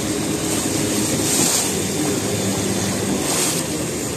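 Water taxi's motorboat engine running steadily while water rushes and splashes past the hull, with two louder swells of splashing about a second and a half and three and a half seconds in.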